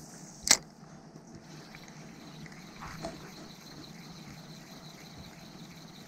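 A single sharp click close to the microphone about half a second in, after a cast with a spinning rod and reel. Then only a faint, steady outdoor hiss.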